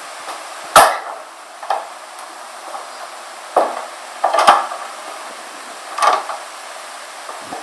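Interior doors being handled, opened and shut: a sharp knock about a second in, the loudest, then a string of softer knocks and latch clicks, over a steady hiss.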